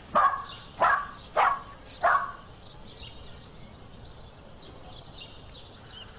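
A dog barking four times in quick succession, about two barks a second, over steady birdsong chirping.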